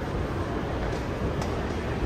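Steady low rumble and hiss of a passing vehicle, with a faint tick about one and a half seconds in.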